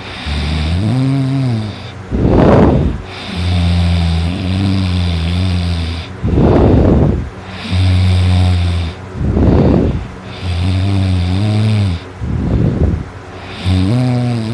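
A person snoring loudly in a steady rhythm. Short, harsh rasping breaths come four times, each followed by a longer wavering drone, the cycle repeating every three to four seconds.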